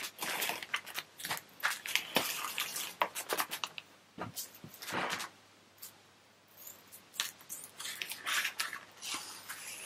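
Plastic vacuum-bagging film crinkling and rustling as it is handled and pulled open, in irregular crackles and snaps, with a short lull a little past the middle.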